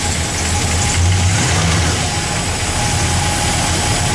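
1966 Buick Wildcat Gran Sport's 425 cubic-inch V8 idling smoothly and steadily, moments after being started.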